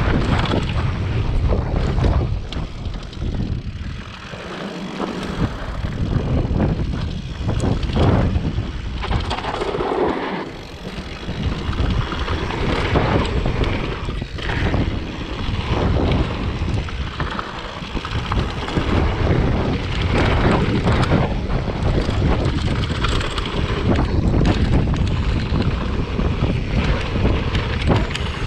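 Strong wind buffeting the microphone in uneven gusts, over the rolling and rattling of a mountain bike on a dirt trail.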